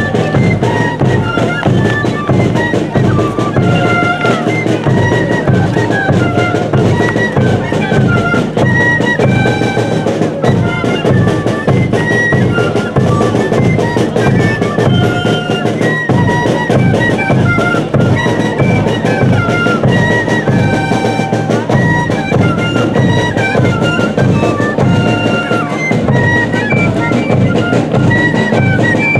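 Live Andean traditional music for the K'ajelos dance: a high woodwind melody of short held notes over a steady bass-drum beat.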